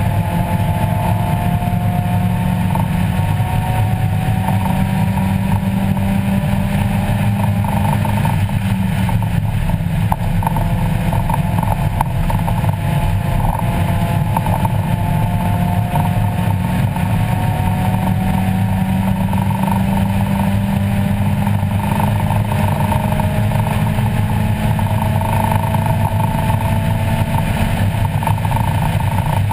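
Mazda Miata's 1.8-litre four-cylinder engine heard from inside the cabin, running hard on track, its pitch climbing steadily and then dropping back several times as the car accelerates and shifts gear, over steady road and wind noise.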